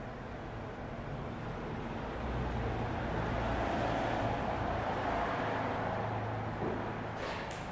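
Steady low rumble and hiss of background noise that swells and fades in the middle, with a few short clicks near the end.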